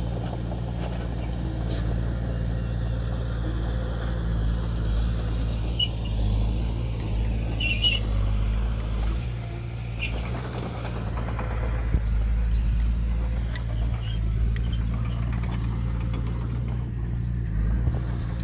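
Diesel engine of heavy earthmoving machinery running steadily, with a few faint metallic clinks.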